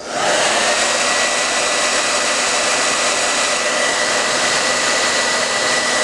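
Handheld hair dryer switched on, spinning up within the first second, then running steadily: an even rush of air with a thin motor whine.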